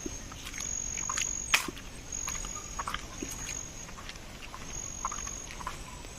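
Small animals calling outdoors: a high, steady trill that comes and goes in stretches, with many short chirps and clicks scattered through it. One sharp click stands out about a second and a half in.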